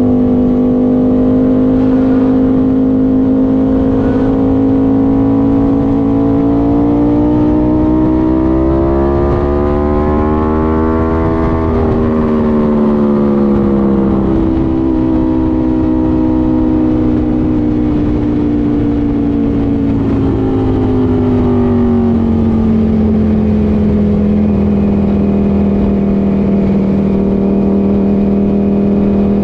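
Ducati Panigale V4's V4 engine running under way, its note climbing slowly to a peak about eleven seconds in, then easing down and holding a lower steady pitch.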